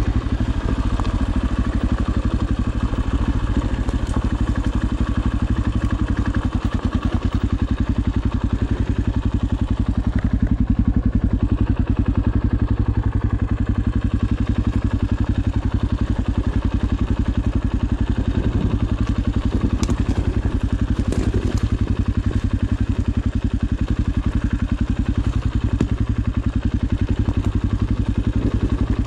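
Single-cylinder four-stroke dirt bike engine running steadily while riding, with a few sharp knocks about twenty seconds in.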